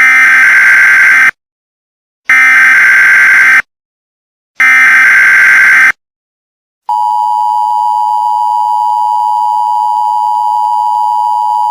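Emergency Alert System header: three bursts of data tones, each just over a second long with silences between. About seven seconds in, the steady two-tone EAS attention signal starts and holds through the rest.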